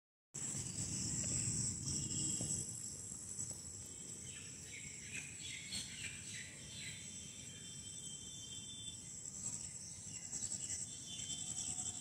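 Insects chirring in a steady, high-pitched trill, with a few faint short chirps in the middle and a low rumble of outdoor noise in the first few seconds.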